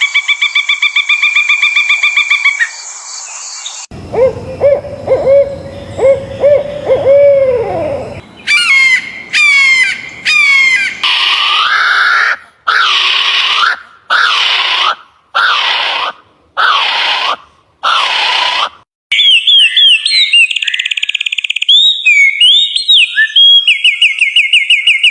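A sequence of different bird calls, changing abruptly from one to the next. A fast high trill comes first, then a few seconds of low repeated notes ending in a long falling glide. Quick falling sweeps follow, then a run of eight loud calls about a second apart, and finally high chirps and rapid trills.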